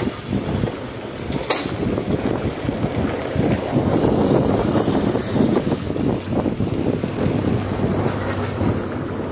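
Vintage open-top tram running along street track, heard from its top deck: a steady rumble of wheels on rails with a low hum, and wind buffeting the microphone. A single sharp click comes about one and a half seconds in.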